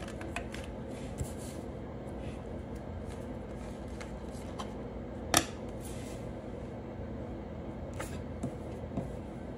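Steady low background hum with a few scattered sharp clicks and taps; the loudest comes a little past halfway, then a few softer ones near the end.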